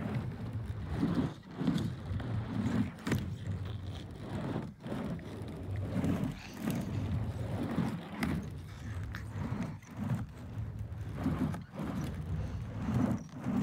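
Skateboard wheels rolling back and forth on a wooden mini half-pipe: a low rumble that swells with each pass across the ramp, with occasional sharp knocks of the board and trucks against the ramp.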